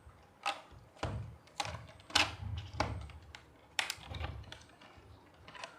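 A product box being handled and opened for unboxing: a series of sharp clicks and light knocks, about six over a few seconds, with low rustling between them.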